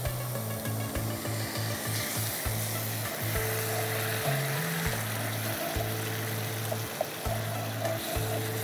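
Onion, chilli and turmeric masala frying in ghee in a nonstick pan, sizzling steadily as a wooden spatula stirs and scrapes it. Soft background music with held low notes plays beneath.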